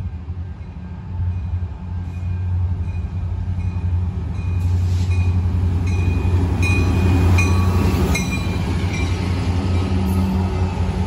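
Canadian National freight train's diesel locomotives approaching and passing close by, a deep engine rumble growing louder as they near. A bell rings steadily about twice a second, the locomotive's crossing bell sounding after the horn.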